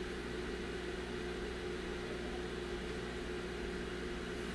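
Steady machine hum: a constant pitched drone over an even low noise.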